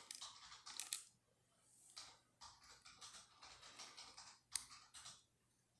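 Faint clicks and taps of small metal lock parts as a pin-tumbler lock is taken apart and its driver pins removed, with a sharper click about a second in and two more about four and a half seconds in.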